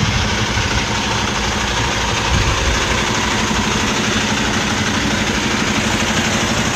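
A 2017 Kenworth T680 semi truck's Cummins ISX diesel engine idling steadily, under a steady hiss.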